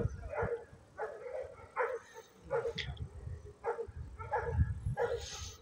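A dog barking repeatedly, about eight short barks in a steady rhythm, over a low rumble.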